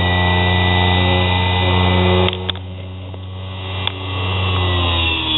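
Homemade mini bench grinder's small sewing-machine motor spinning a grinding wheel, running with a steady hum and whine. A little after two seconds in there are a couple of clicks and the sound drops for about a second and a half, then comes back up to the same steady running.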